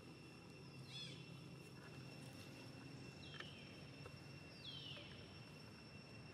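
Faint outdoor ambience: a steady high insect drone, with three short falling chirps about one, three and five seconds in.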